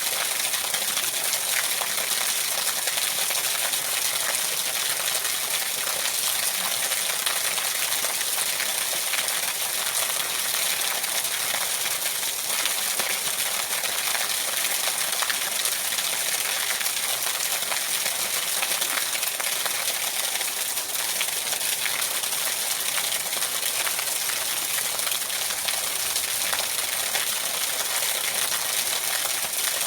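Steady rain falling: an even hiss with a dense patter of small, sharp drop ticks.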